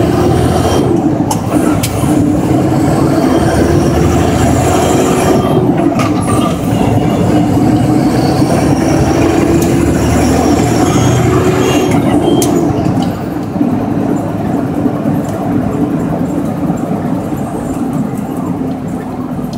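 Mack truck's diesel engine, loud from inside the cab, pulling as the truck accelerates through the gears: its pitch climbs, then steps down at each shift, about a second, six and twelve seconds in. About 13 seconds in it eases off and runs quieter.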